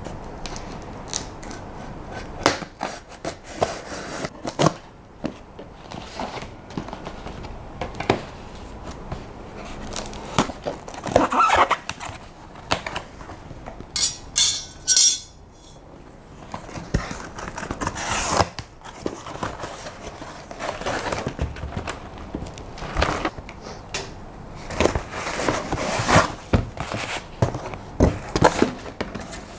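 Cardboard shipping box being opened: a blade scraping and knocking on the cardboard, a short scratchy burst at the taped seam about halfway through, then box flaps and packaging rustling and bumping as items are pulled out.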